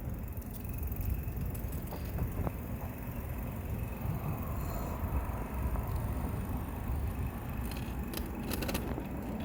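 Steady low rumble of wind and road noise while riding an electric bike, with a few short clicks and rattles near the end.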